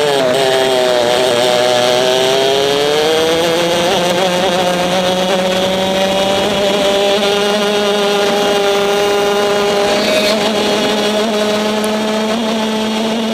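A racing kart's two-stroke engine, recorded onboard, running hard. Its pitch drops as the kart slows for a corner, then climbs steadily as it accelerates down the straight, with a brief dip about ten seconds in.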